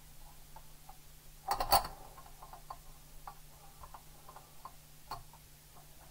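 Small clicks and light knocks of hard model parts being handled and fitted together, with a louder clatter about a second and a half in.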